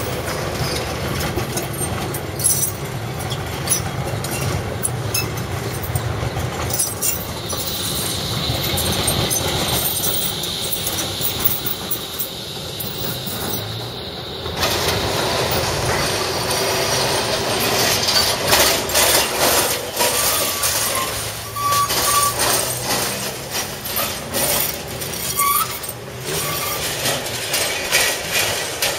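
Tram wheels on street track: repeated clacking as the wheels cross rail joints and switches, with a high steady squeal from the wheels on the curve lasting several seconds in the first half and a couple of short squeaks later.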